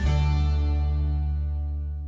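Background music ending: a final plucked or keyboard chord struck at the start and left to ring, slowly fading.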